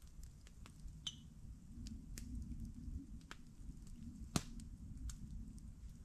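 Wood campfire crackling: irregular sharp pops and snaps, the loudest about four and a half seconds in, over a low rumble.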